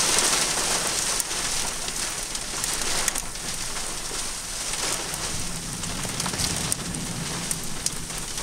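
Steady rain: a continuous hiss with scattered sharp ticks of drops striking a surface close to the microphone.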